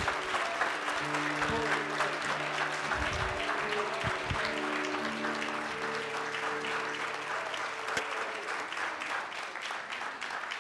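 Congregation applauding as the song's accompaniment holds its last sustained chords. The music stops about eight seconds in, and the clapping thins out toward the end.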